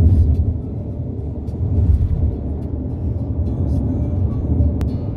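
Road noise inside a moving car's cabin: a steady low rumble, with one sharp click near the end.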